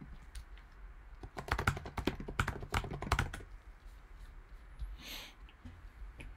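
Typing on a computer keyboard: a quick flurry of key clicks lasting about two seconds, then a brief hiss about five seconds in.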